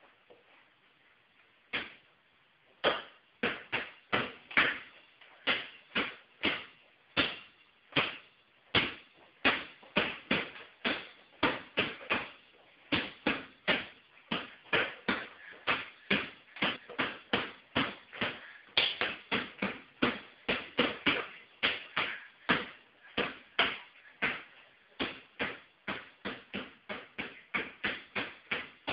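Basketball being dribbled on a hard tiled floor: a steady run of bounces, about two to three a second, starting about two seconds in.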